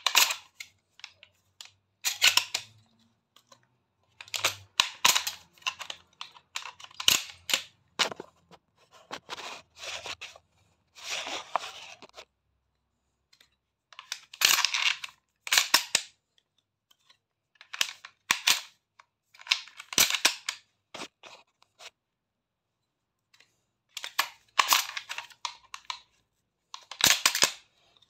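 Shotgun shells being drawn from belt caddies and pushed one after another into a pump-action shotgun's magazine tube during loading practice. The sound is runs of sharp clicks and clacks, each a second or two long, with short pauses between.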